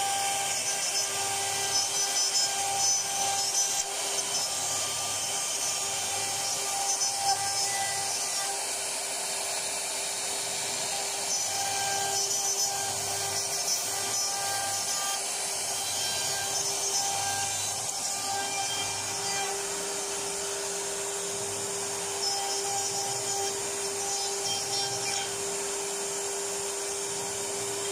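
CNC wood router running, its spindle giving a steady whine while the bit cuts grooves into a wood panel. The cutting noise swells and eases every few seconds as the bit moves through the pattern.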